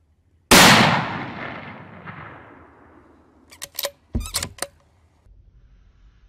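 A single gunshot, sudden and loud, its echo rolling away over about two and a half seconds: the shot that drops a coyote. About three seconds after it, a quick run of sharp clicks and a knock close by.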